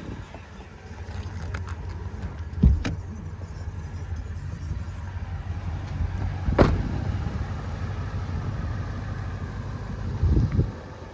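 Toyota Tundra's 5.7-litre V8 running with a steady low idle rumble, broken by three short thumps: a few seconds in, in the middle, and near the end.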